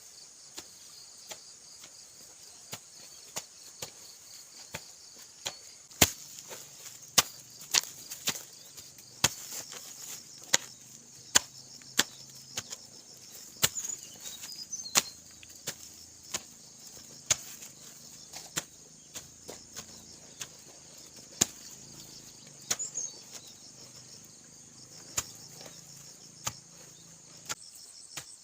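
Hand hoe chopping into the soil again and again, about one stroke a second, starting about six seconds in. Crickets chirp steadily behind it.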